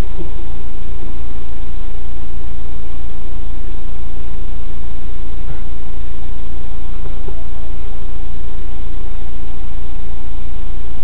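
Car engine idling, heard from inside the stationary car's cabin as a loud, steady low drone.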